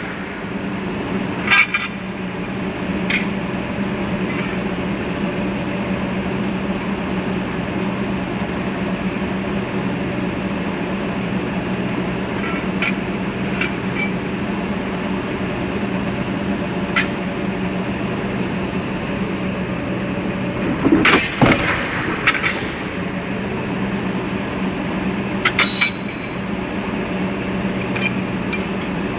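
A steady low mechanical hum, with scattered light clinks and knocks, a cluster of them about three quarters of the way through.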